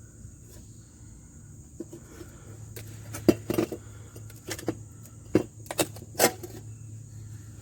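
Loose metal auto parts and tools clinking and clanking against each other: a cluster of about seven sharp knocks starting about three seconds in. A steady high insect buzz runs underneath.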